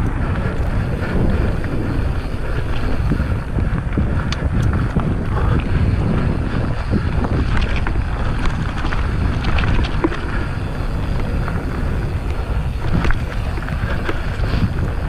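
Mountain bike riding over a dirt trail: heavy wind rumble on the microphone with tyre noise and scattered clicks and knocks from the bike over rough ground.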